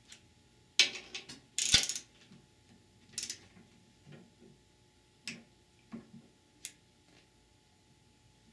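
Ratchet-head torque wrench tightening guide plate bolts to 20 ft-lb on a transmission case: short bursts of ratcheting and several sharp single clicks, the loudest burst under two seconds in.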